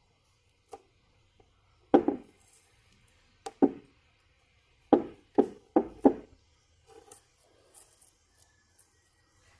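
Sharp hollow knocks and taps from handling a plastic car tail-light lens and a utility knife while lifting masking tape off it, about seven knocks, bunched closest together around five to six seconds in, followed by faint small clicks and scratches.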